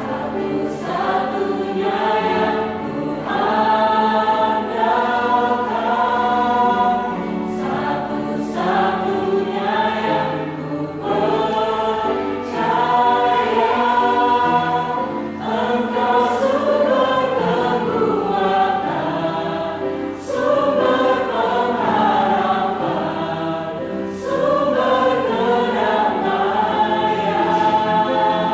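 A church choir singing a praise song.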